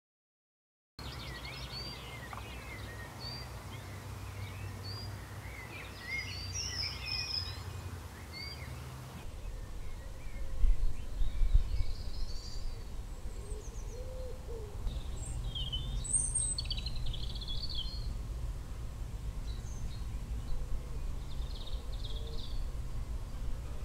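Wild songbirds chirping and singing over a low rumble of wind on the microphone, which gusts louder about ten seconds in; the sound starts about a second in, after silence.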